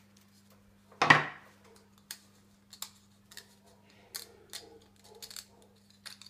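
Thin iron wire clicking and ticking against a wooden form as the wrapped wire heart is pressed and pried off with the fingers, with one louder metallic clack about a second in.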